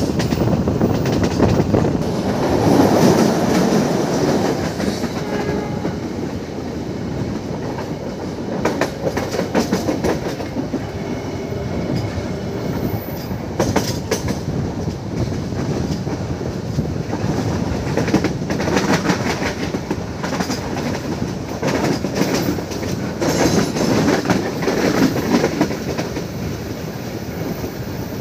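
Passenger train running at speed: a steady rumble of the carriage, with the wheels clicking over rail joints now and then (clickety-clack).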